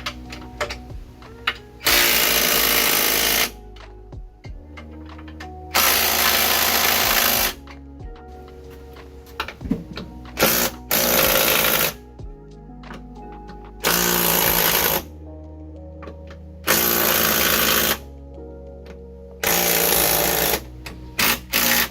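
Power impact wrench run in repeated bursts of one to two seconds, about seven times, tightening bolts, over background music.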